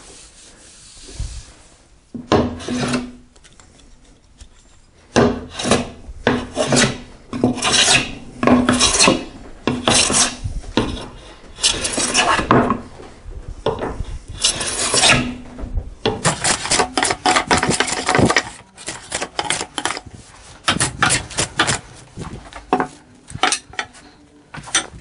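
Jack plane shaving the face of a wide board by hand: a long run of rasping cutting strokes, about one a second, starting about two seconds in and stopping just before the end. The plane is being worked across the board rather than along its length, flattening the face.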